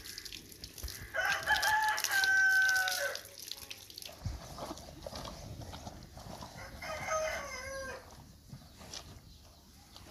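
A rooster crowing twice: a long crow starting about a second in, then a shorter one about seven seconds in.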